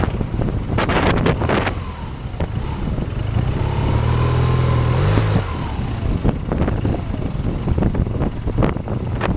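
BMW R 1200 GS boxer-twin engine pulling on a dirt track, revving up in the middle and dropping off about five seconds in, with short knocks and buffets of the ride over rough ground throughout.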